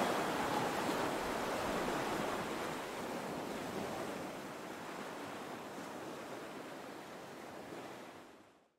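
Ocean wash: a steady, even hiss of sea and waves that fades slowly and dies away just before the end.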